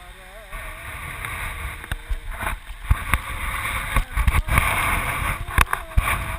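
Wind rushing over the microphone in flight, a steady roar with irregular buffeting thumps that grows stronger after the first half second.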